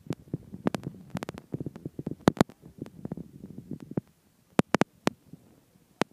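Handling noise on the recording device: irregular sharp clicks and knocks over a low rubbing rumble for the first four seconds or so, then a few separate clicks.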